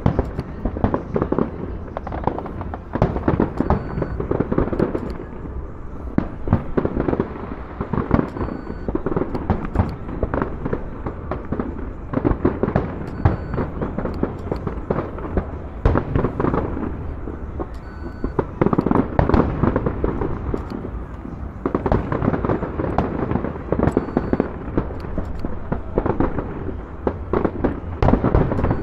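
A professional fireworks display: aerial shells bursting in quick succession, several bangs a second with crackle between them, with no real pause.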